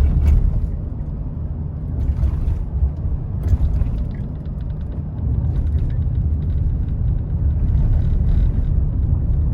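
Steady low rumble with a few faint knocks.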